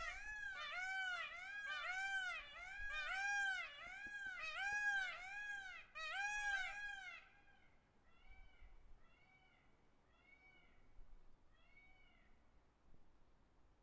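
Peacock giving a rapid series of short rising-and-falling calls, about two a second, for about seven seconds, then fainter calls about once a second.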